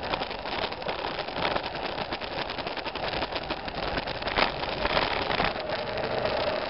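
Single-cylinder motorcycle engine running while the bike jolts and rattles over a rocky, muddy trail, with wind on the microphone and a sharp knock about two-thirds through. Near the end the rattling stops and a steady engine hum remains as the bike goes down.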